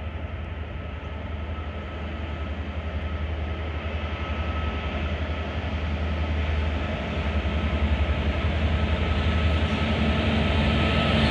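A coal train's lead Pacific National 82 class diesel-electric locomotives, EMD two-stroke diesels, approaching and starting to pass. Their engines make a steady low drone, and the engine and wheel-on-rail rumble grow steadily louder as the train comes closer.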